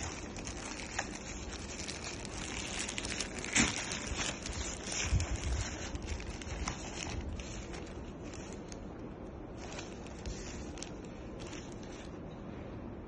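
Thin plastic bag crinkling and rustling as a handheld jump starter is slid out of it, with handling noise from the unit and its case. The loudest crinkles come about four and five seconds in, then it settles to quieter handling.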